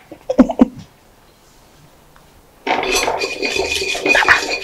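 A hand rummaging inside a ceramic pot to draw a paper slip, giving a continuous clinking and rattling against the pot. It starts suddenly more than halfway in, after a short voice sound at the start and a quiet moment.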